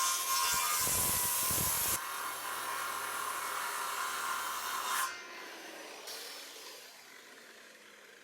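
Power saw cutting a notch in a 2x6 board; the cut ends about two seconds in, the saw runs free until about five seconds in, then is released and its whine falls away as the blade winds down.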